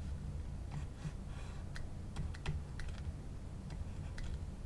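Stylus tapping and scratching on a tablet while drawing a triangle and writing numbers: about a dozen scattered sharp clicks with a brief faint scratch, over a low steady hum.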